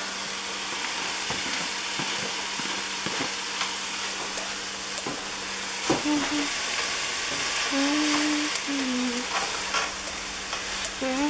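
Chopped scallions and mushrooms sizzling in a hot skillet, the mushrooms cooked down with all their liquid gone, stirred with a slotted spatula that clicks and scrapes against the pan now and then.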